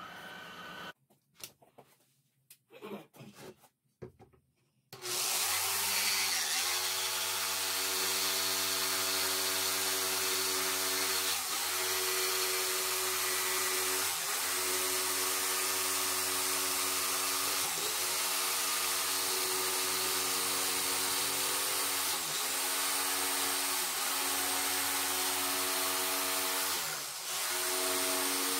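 A jigsaw (saber saw) cutting through a wooden board along a curved line. It starts about five seconds in after a short quiet, then runs steadily with brief dips in pitch every few seconds as the cut goes on.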